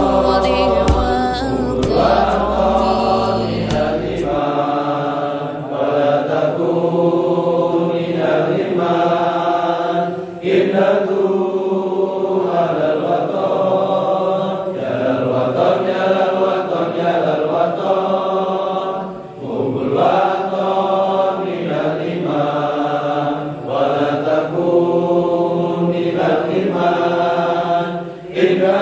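A group of men singing a song together in unison, in long phrases with short breaks for breath between them. A low hum under the voices cuts off about four seconds in.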